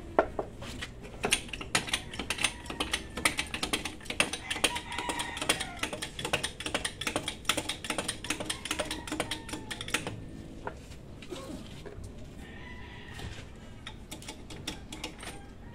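Ratchet wrench clicking quickly as fasteners on a jeepney's front steering linkage are worked; the rapid clicking stops about ten seconds in, leaving only a few scattered clicks.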